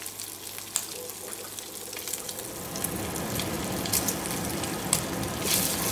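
Bacon rashers sizzling in a frying pan, with scattered crackles and pops of spitting fat; the sizzle grows gradually louder.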